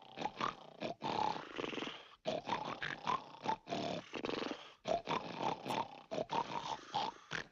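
Cartoon sound effects of soldiers snoring in their tents: many overlapping snores in quick, irregular pulses.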